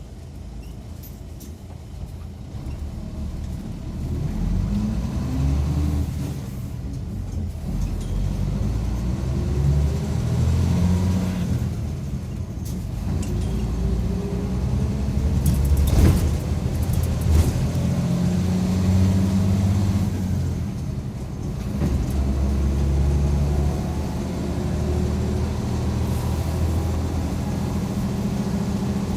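Mitsubishi Fuso Aero Midi MK bus engine heard from inside the cabin, pulling away and accelerating, its pitch rising and then dropping back several times as the gears change. A few sharp knocks sound about halfway through.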